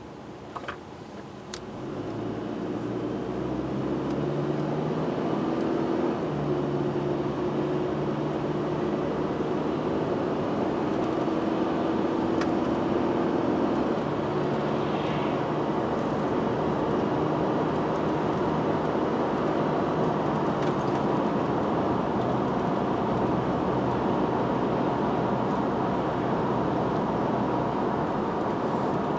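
A car heard from inside its cabin pulling away from a stop and accelerating, the engine note climbing and dropping back at gear changes over the first dozen or so seconds. It then settles into a steady drone of road and tyre noise at cruising speed. Two light clicks just before it moves off.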